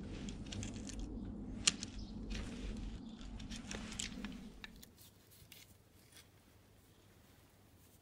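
Rustling and scattered sharp clicks as freshly cut ash forks are handled and worked with a penknife, over a low steady rumble. About five seconds in it all drops away to a faint background with a few small ticks.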